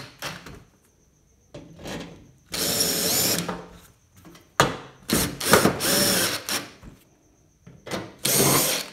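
Cordless drill/driver running in several short bursts with its motor changing pitch, driving screws back into the sheet-metal bottom edge of a washing machine's front panel.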